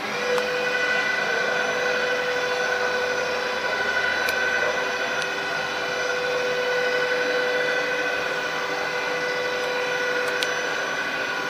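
Robotic welding arc on aluminium from an OTC Daihen Almega AX-V6L cell, a loud, steady buzz at one constant pitch that strikes up suddenly at the start and holds evenly throughout.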